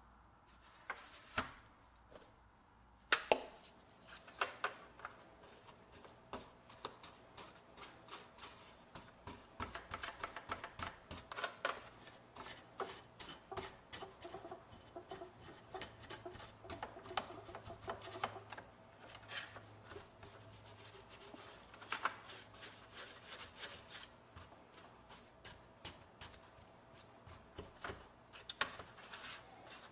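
Small metal toy-truck parts being scrubbed and scraped in a disposable aluminium foil pan to lift paint softened by stripper: quick, scratchy strokes, with a few sharp clicks in the first few seconds.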